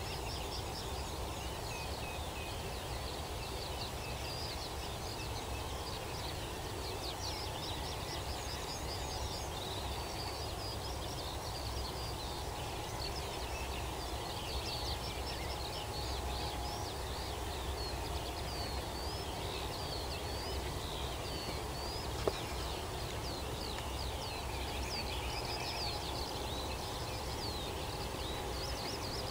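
A dawn chorus of many songbirds chirping and trilling over one another without a break, over a steady low rumble. A single sharp click sounds about 22 seconds in.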